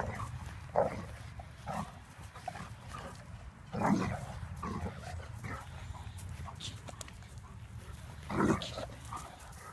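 Great Danes at play giving short barks and grunts, a handful of separate bursts, loudest about four seconds in and near the end.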